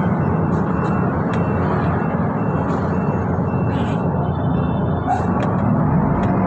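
Steady engine and road noise inside a Transjakarta city bus while it is under way.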